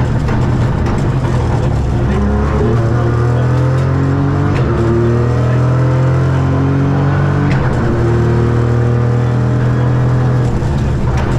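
Ford Fiesta Rally3's 1.5-litre turbocharged three-cylinder engine at full throttle, its pitch climbing and then dropping back several times as it shifts up through the gears. There are three short sharp cracks along the way.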